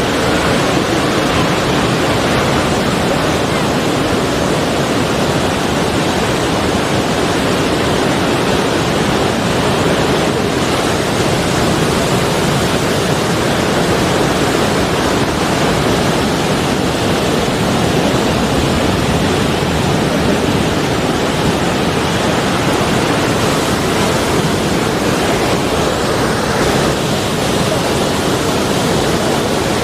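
Sea waves and surf as a steady, even rush of noise, without distinct swells or breaks.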